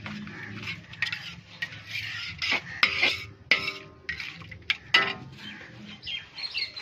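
Long-handled perforated metal ladle scraping and knocking against a large iron karahi while stirring sliced onions frying in ghee. Irregular scrapes with several sharp metallic clanks that ring briefly, the loudest about three and five seconds in.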